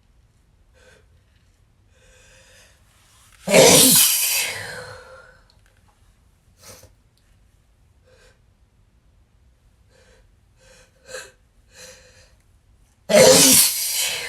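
A person sneezing twice, two loud sudden sneezes about ten seconds apart, the second near the end. Faint short breaths come before each.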